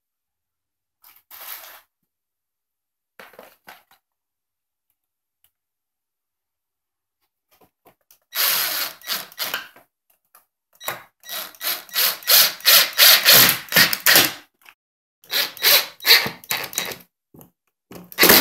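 Ridgid 18-volt cordless driver driving screws through metal brackets into MDF panels in several runs that start and stop, the longest in the middle. Before that come a couple of light knocks as the panel is handled.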